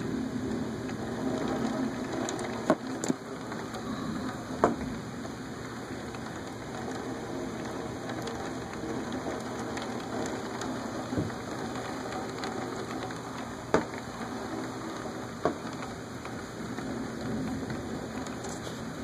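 Steady rain falling in a thunderstorm, a continuous hiss, with a handful of sharp taps standing out, the loudest about three and five seconds in.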